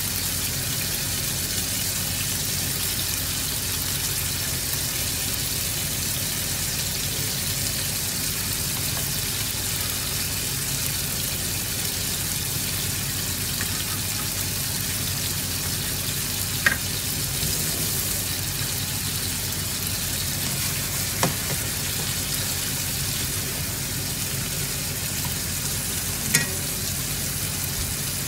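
Food frying in hot oil in a pan, a steady sizzle, with three short sharp clicks in the second half.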